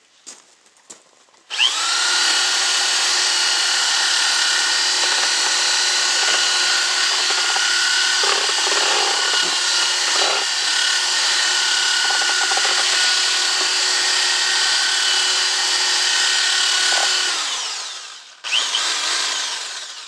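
Corded electric drill with a mixing paddle spinning in a bucket of clay mortar. It spins up about a second and a half in, runs steadily for about sixteen seconds with a high whine, stops, then runs again for about two seconds near the end.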